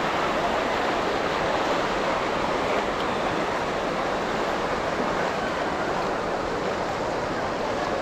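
Ocean surf washing onto the beach in a steady rush.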